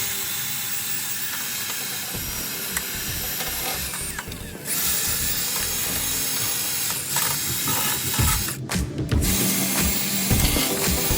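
Hand or power tool working on the truck's metal, a steady mechanical noise that breaks off briefly twice, about four and about eight and a half seconds in.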